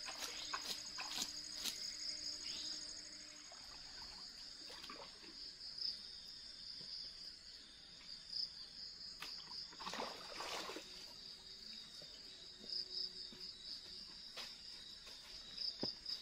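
A steady, high-pitched, pulsing chorus of forest insects, with scattered footsteps and handling noises and a short burst of noise about ten seconds in.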